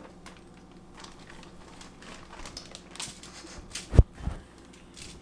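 Plastic bag and foil crinkling with scattered small clicks and taps as bacon and a bag of brown sugar are handled on a kitchen counter, with a sharp knock about four seconds in and a lighter one just after.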